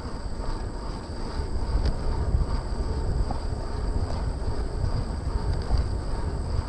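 Wind buffeting the microphone of a bike-mounted action camera while riding, a steady low rumble with tyre and road noise mixed in. A faint steady high-pitched tone runs above it.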